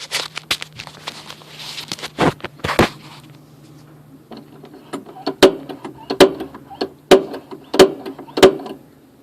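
Propane refrigerator's igniter button being pumped to light the pilot: five sharp clicks about 0.7 s apart in the second half, each with a short ring. Before them, rustling and a couple of knocks from hands working the controls.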